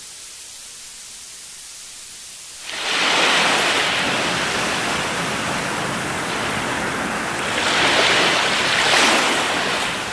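Faint tape hiss, then about two and a half seconds in a loud rushing noise that swells twice near the end, a noise effect in a radio broadcast recorded off air onto tape.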